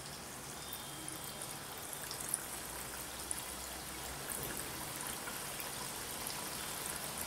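Bedmi pooris deep-frying in hot oil in a kadhai: a steady sizzling hiss full of small crackles, growing slightly louder as more pooris are slid into the oil, with a couple of faint ticks.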